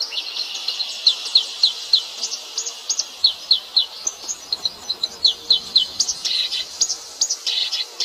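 Small birds chirping in quick runs of short, high notes that drop in pitch, over a steady high buzz of insects.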